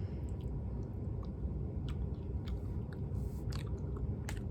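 Chewing on a sour plum fruit leather: scattered small mouth clicks and smacks, the loudest near the end, over a steady low hum.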